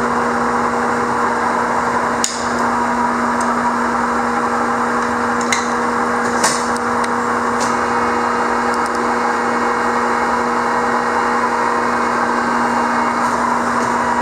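Carlton radial arm drill press running steadily, its motor and gearing giving a constant hum, with a few sharp metallic clicks over it.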